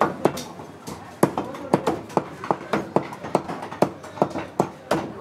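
Heavy meat cleaver chopping chicken on a thick wooden chopping block: quick, regular chops, about three a second.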